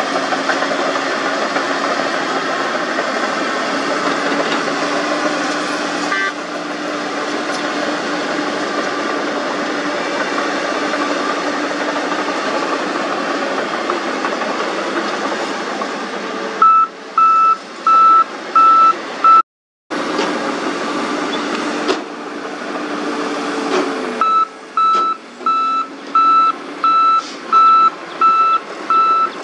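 Heavy earthmoving machinery at work, a crawler bulldozer close by, its diesel engine running with a steady drone. About halfway in, a reversing alarm starts beeping about one and a half times a second. It stops with a moment of silence, then starts again near the end.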